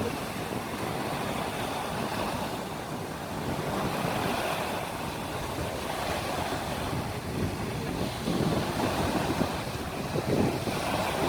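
Small sea waves washing onto the shore, with wind gusting on the microphone, the gusts loudest about eight and ten seconds in.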